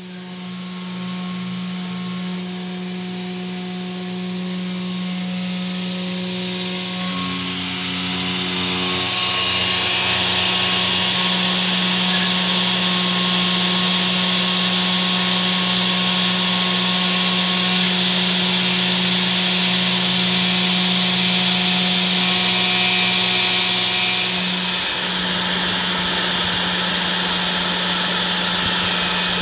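CNC router spindle running with a steady hum as a fine engraving bit mills copper-clad fibreglass circuit board; the hiss of the cut builds over the first ten seconds or so, then holds steady.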